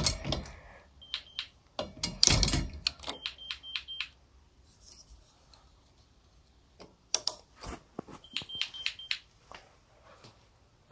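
GE Simon XT alarm panel sounding short, high beeps on one pitch in small groups, about a second in, around three to four seconds in and again near eight seconds, while the system is armed. Between them come clicks and knocks from a door and its plastic fitting being handled, loudest at the start and about two seconds in.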